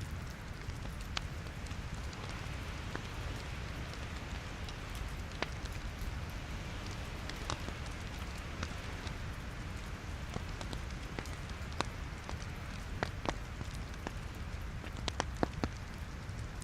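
Logs burning in a fireplace: a steady low rumble and hiss of the fire with scattered sharp crackles and pops, a quick run of them near the end.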